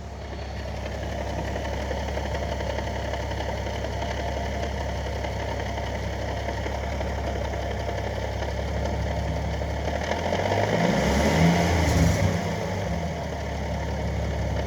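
Nissan 370Z's V6 idling in neutral with the clutch pedal released, the drivetrain giving a steady rattling chatter (gear rollover) that comes in as the pedal comes up and turns briefly louder and rougher about ten seconds in. The clatter comes with a Z1 mid-weight flywheel, JWT clutch and new CD009 six-speed; the owner asks whether it is normal and says it gets worse the hotter things get, sometimes sounding like a diesel.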